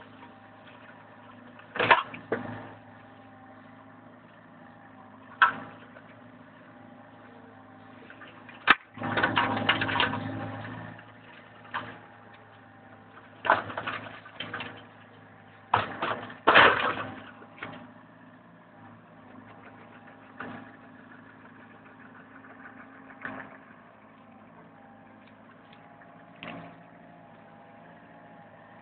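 Komatsu PC50MR-1 mini excavator's diesel engine running steadily while its Osmaq CRM 120 flail mulcher head shreds brush and grass. Several loud bursts of chopping noise break in as the head bites into the vegetation, the longest lasting about two seconds.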